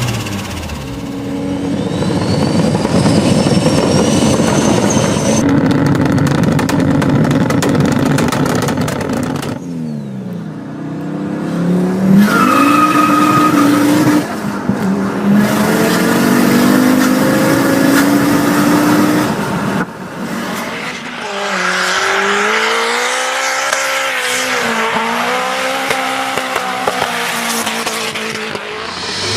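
Turbocharged car engines revving up and down in a run of short cut-together clips, with turbo flutter as the throttle snaps shut. A rising turbo whistle comes early on, and a steady high squeal sounds a little under halfway through.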